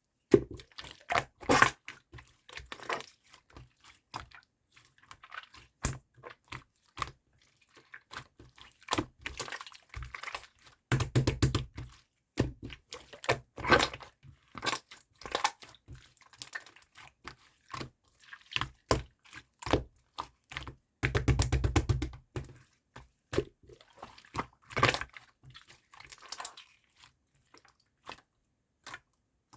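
Slime being squeezed and poked, giving dense, irregular crisp clicks and crackles, with a few longer crunchy stretches.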